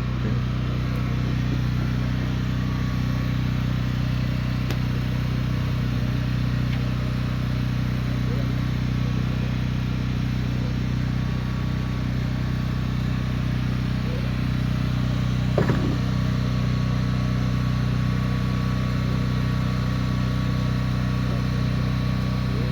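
An engine running steadily at one constant speed, a low even hum, with one brief sharp sound about two thirds of the way through.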